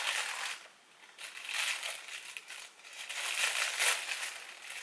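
Scissors cutting open a plastic mailer bag, the plastic crinkling and rustling irregularly, with a brief pause about half a second in.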